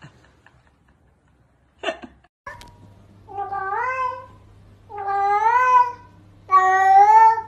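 Grey domestic cat meowing three times, each meow drawn out for about a second and rising then falling in pitch, over a faint steady low hum.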